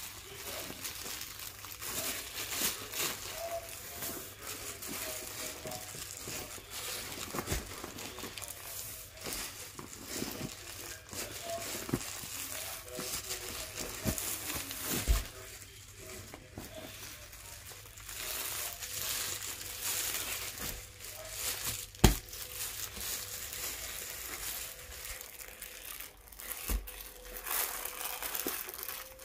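Clear plastic pillow packaging crinkling and rustling as it is handled, with scattered small taps and one sharp knock about three quarters of the way through.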